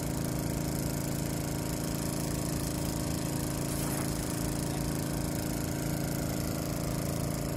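A small engine running steadily at a constant speed, an even hum that does not change.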